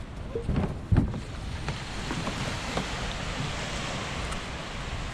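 Steady rush of wind on the microphone and shallow seawater at the shoreline, with two knocks about a second in and a few faint clicks after.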